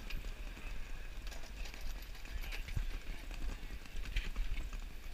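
Irregular sharp clacks on cobblestones over the hubbub of a busy square, with a steady low wind rumble on the microphone.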